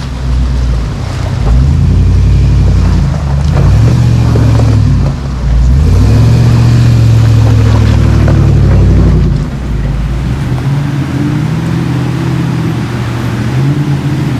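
Power Wagon pickup truck engine working under load on a rough off-road trail. It revs up and eases off several times, loudest through the middle, and drops back to a lower, steadier run near the end.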